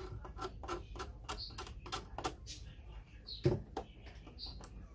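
Irregular light clicks and ticks, a few a second, from a thin tool working glue into the loose neck joint of a cello, with one louder knock about three and a half seconds in.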